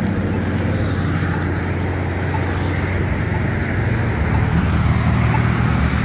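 Steady road traffic noise that swells from about four seconds in as vehicles pass. Under it, a faint tick about once a second from a Polara iN3 pedestrian push button's locator tone.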